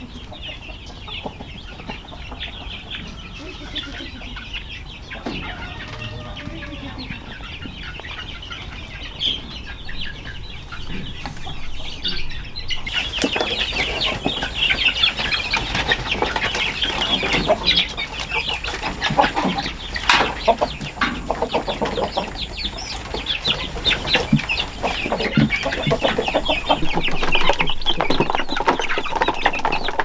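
A flock of young chickens clucking and cheeping, soft for the first dozen seconds, then suddenly much louder and busier from about thirteen seconds in as they crowd around feed.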